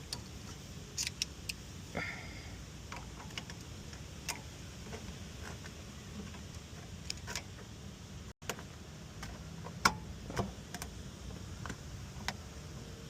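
Scattered clicks and light metal knocks of hand tools on a car's brake caliper as the caliper piston is pushed back, with one louder knock about ten seconds in, over a steady low hum.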